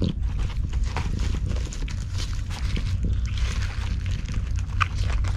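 Cats eating cat food right at the microphone: rapid, irregular chewing and licking clicks over a steady low rumble.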